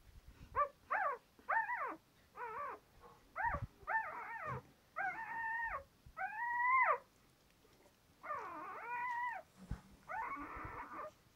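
Newborn flat-coated retriever puppy crying: a string of high-pitched squeals, short and quick at first, then longer drawn-out wails of up to a second each.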